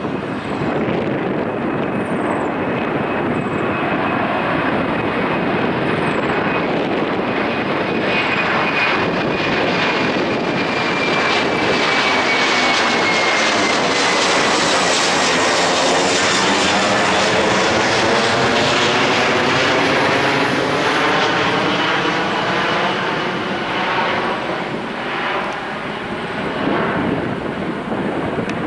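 Airbus A330 jet engines at take-off thrust as the airliner climbs out and passes by. The roar swells to its loudest in the middle and eases off toward the end, while a high whine drops in pitch as the aircraft goes past.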